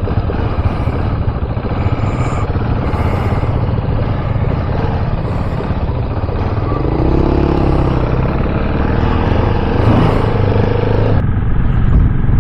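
KTM 690 Enduro R's single-cylinder engine running as the bike is ridden along, with wind rushing over the microphone.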